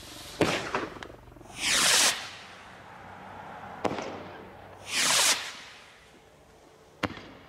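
A multi-shot consumer firework firing shot after shot, about every three seconds. Each shot goes up with a short whoosh and bursts with a sharp crack in the sky about a second and a half later.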